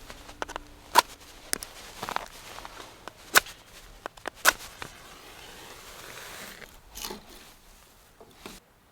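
A few separate sharp clicks and knocks, with a soft hiss in the middle that stops abruptly.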